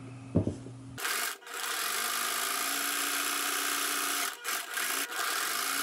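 A sharp click, then from about a second in a Kenmore sewing machine running steadily at speed while stitching a hem in fabric, breaking off briefly a few times.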